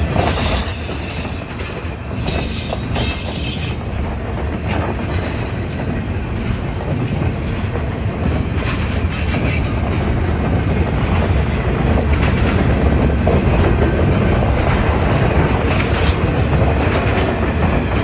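Container train's cars rolling past on the rails, a steady rumble of wheels on track. Brief high-pitched wheel squeals come in the first few seconds and again twice later, and the rumble grows a little louder after the middle.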